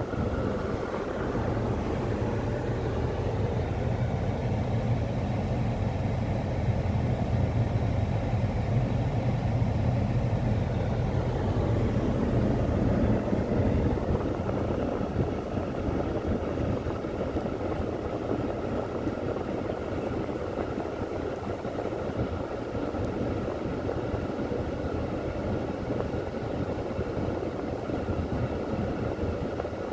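Freight train cars rolling through a railroad grade crossing: a steady rumble and clatter of wheels on the rails. A deep low rumble is heavier in the first half and eases about halfway through.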